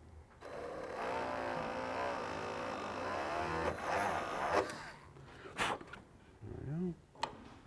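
Cordless Dremel rotary tool running, drilling a screw hole through a fiberglass cowl: a steady whine for about three seconds that then stops. A few sharp clicks follow.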